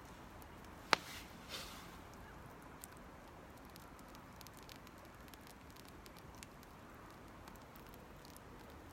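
Small campfire crackling faintly, with scattered ticks and one sharp pop about a second in.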